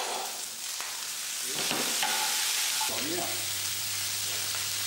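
Beef chuck browning in hot oil in a frying pan, sizzling steadily, with vegetables frying in a second pan.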